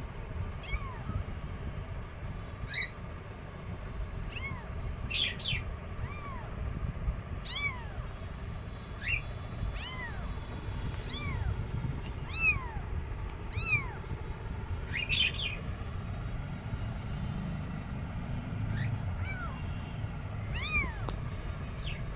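Newborn kittens mewing: repeated short, high-pitched mews, each rising then falling, about one every second, with a lull a little after halfway.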